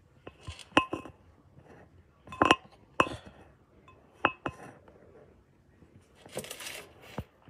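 Several sharp clinks and taps of small hard objects, each with a short ring, the loudest about a second in and again near two and a half seconds, followed by a brief rustle near the end.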